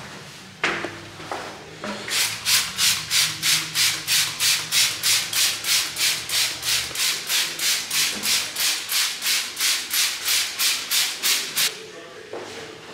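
Brisk, regular scrubbing strokes, about three a second, starting about two seconds in and stopping shortly before the end. A single knock comes just before the strokes begin.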